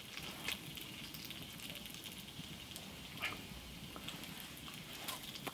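Faint crackle and hiss of a wood campfire and its glowing coals, with a few soft ticks.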